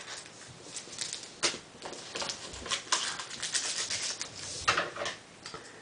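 Baseball trading cards and packs being handled by hand: a run of light clicks, taps and rustles, busiest in the middle.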